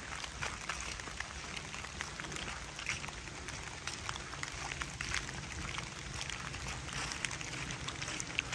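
Footsteps rustling through wet fallen leaves on a forest path, with rain falling on the leaves all around: a steady patter of small ticks and drips.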